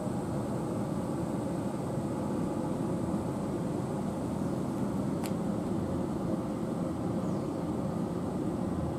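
Steady low background rumble, with a faint high whine throughout and one sharp click about five seconds in.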